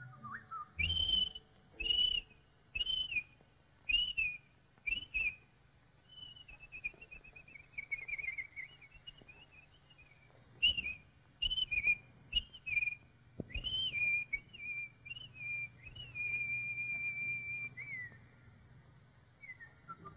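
Whistled bird calls from a cartoon soundtrack. A run of short high whistles comes about once a second, then a wavering trill, then more short whistles and one long held note that drops off near the end.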